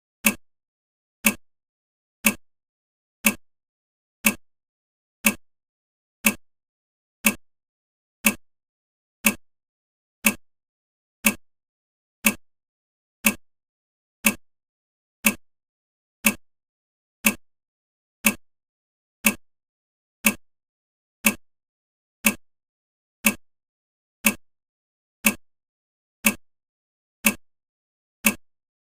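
Countdown timer's clock-tick sound effect, one sharp tick every second, marking off the seconds of the countdown.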